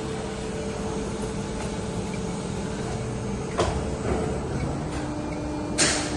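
Workshop machinery running with a steady hum and a few held tones, a sharp knock about three and a half seconds in, and a short loud hiss-like burst near the end.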